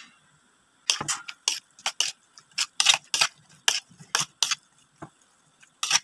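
A metal spoon stirring chunks of raw pork in a plate, scraping and clacking against the plate in quick, sharp strokes, about two or three a second, starting about a second in.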